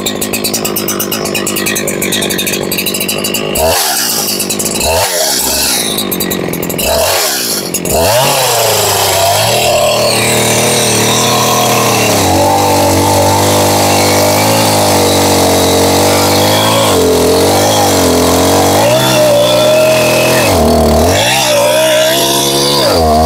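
Husqvarna 372XP 70 cc two-stroke chainsaw running. It is revved in three quick blips, then held at high revs from about eight seconds in as it cuts into a tree trunk, the pitch sagging several times as the chain bites into the wood.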